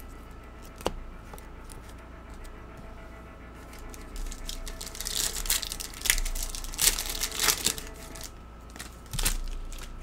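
A trading-card pack wrapper being torn open and crinkled, in bursts of crinkling that grow loudest in the second half, with a sharp click about a second in.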